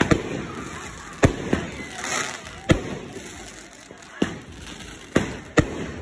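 Fireworks going off: about seven sharp bangs at uneven intervals, with a brief crackling hiss about two seconds in.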